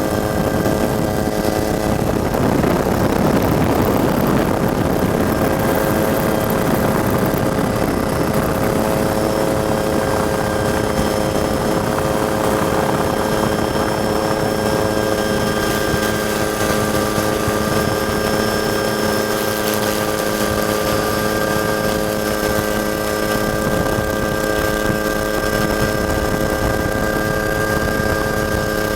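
Helicopter turbine and rotor running steadily, heard from on board: a constant hum of several steady tones over a rushing noise, which swells louder for a few seconds near the start.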